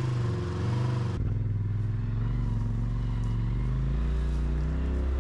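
Side-by-side UTV engine running steadily, with an abrupt change in the sound about a second in and the pitch rising and falling slightly near the end.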